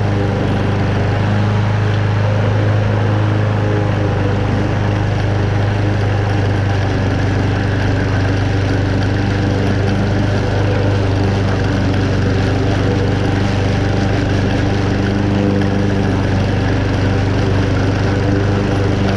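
Toro Super Recycler walk-behind mower's Honda single-cylinder engine running steadily under load while it cuts moderately wet, tall grass, with a strong low hum.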